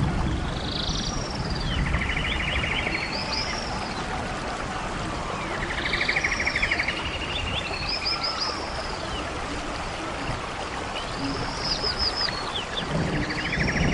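A songbird singing the same phrase three times, about five seconds apart: quick high arching notes and a buzzy trill. Under it runs a steady hiss.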